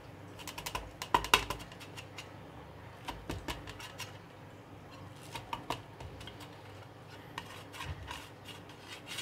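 Metal spatula knocking and scraping against a steel plate while cutting a toasted sandwich: irregular clusters of clinks, loudest about a second in.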